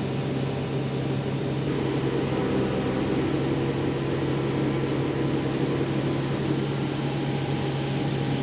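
Tractor engine running steadily at low idle, powering a PTO-driven grain auger with a constant low hum.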